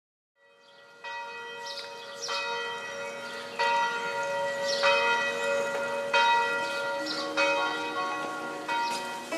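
Church bells ringing, fading in from silence, with a fresh strike about every second and a quarter and several bells of different pitch sounding over each other.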